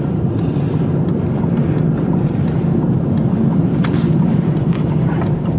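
Steady engine and tyre rumble of a moving car, heard from inside its cabin.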